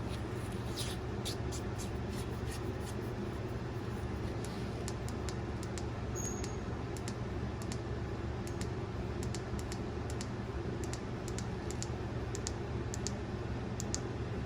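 Light, irregular clicks and taps from handling a Folomov 18650S flashlight while it is readied to be powered up, over a steady low hum.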